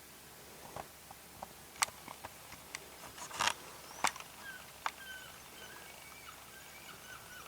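Scattered sharp clicks and taps, with a faint run of short, repeated bird chirps in the second half.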